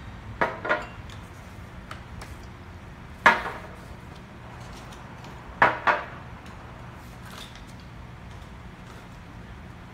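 Small glass wine bottles clinking against each other and knocking down onto a table as they are pulled from a cardboard carrier. A few sharp clinks: a quick pair near the start, one about three seconds in, and another pair a little before six seconds.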